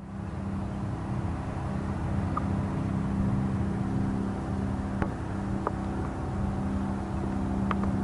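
V8 engine idling steadily with an even low hum, a few faint clicks over it. It is likely the truck's 307 cubic-inch small-block.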